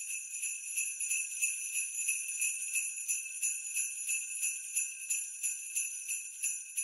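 Sleigh bells shaken in a steady, even rhythm of about five shakes a second, a bright high jingling.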